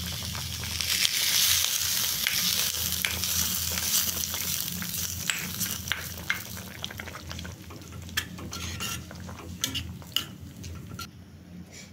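Hot oil tempering of mustard seeds, cumin, garlic, onion and curry leaves sizzling as it is poured into a simmering coconut-milk gravy, the sizzle loudest in the first few seconds and dying down. A metal spoon then stirs it in, with light clicks against the steel pan.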